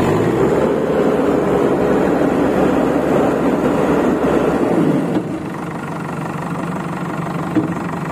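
Manitou TLB 740S backhoe loader's diesel engine running at about 2200 rpm while the hydraulics lift the front loader arm. About five seconds in the sound drops to a lower, steadier running.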